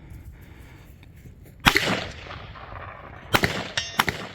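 AR-15 rifle shots at steel targets: one shot with a long echoing tail, a second about 1.7 s later, then a few sharp cracks close together near the end.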